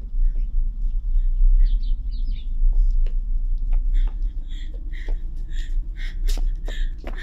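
Low steady rumble of wind on the microphone, with small birds chirping and, from about three seconds in, a person's footsteps on a path at a walking pace, about two steps a second.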